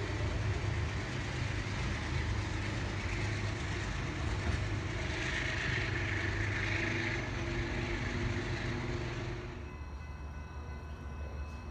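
Metro-North diesel push-pull train pulling away and receding: a steady low engine rumble with wheel and rail noise, and a brighter hiss for a couple of seconds midway. About ten seconds in it cuts off suddenly to a quieter background with a few faint steady tones.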